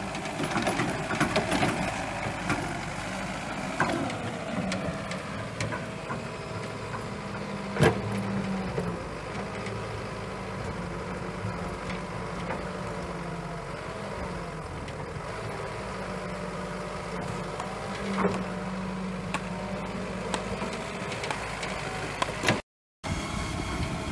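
Wheeled hydraulic excavator's diesel engine running steadily and rising in pitch at times as the bucket digs and swings, with a few sharp clunks from the bucket and boom. The sound cuts out briefly near the end.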